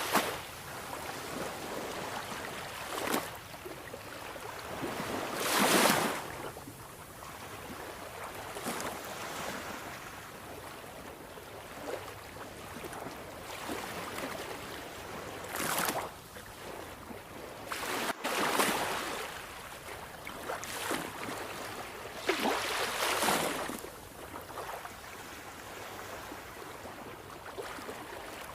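Sea waves breaking on a shore: a steady wash of surf, with a wave crashing in every few seconds and each surge swelling and then fading.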